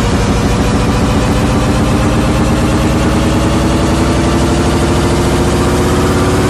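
A vehicle engine idling steadily, loud and close, with an even pulsing beat.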